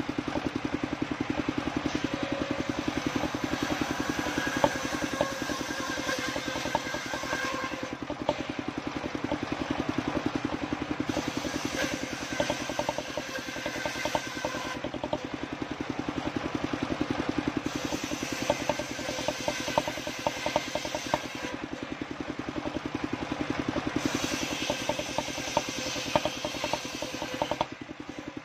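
Circular saw bench with its engine running steadily, ripping waru (sea hibiscus) wood into battens: four times a harsher, higher cutting sound rises over the engine for a few seconds as a board is fed through the blade, then drops back to the saw running free.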